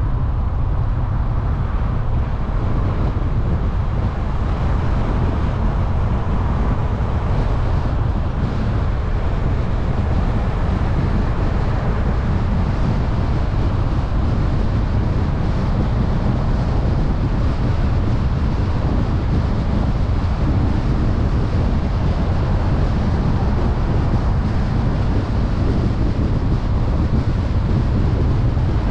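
A car driving at steady speed: continuous road and wind noise with a deep rumble and no change in level.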